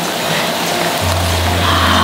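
Kerupuk crackers sizzling in a large pan of hot frying oil, with background music over it; a low steady hum comes in about a second in.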